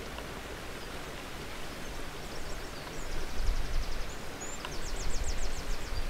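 Small songbirds singing: two quick, high-pitched trills, the first about two and a half seconds in and the second near five seconds, with a few single chirps, over a steady outdoor hiss and a low rumble on the microphone.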